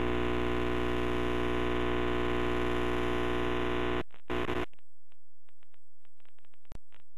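Steady buzzing telephone tone over the phone line after the call ends, cutting off suddenly about four seconds in. A short burst follows, then only faint clicks.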